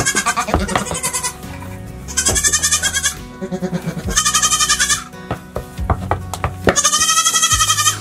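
Nigerian Dwarf goats bleating: four long, wavering bleats, one after another, with steady background music underneath.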